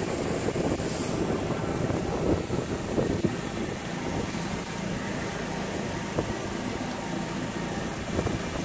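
Motorboat running under way across choppy lake water, heard from the helm behind the windshield: a steady engine rumble mixed with rushing water and wind.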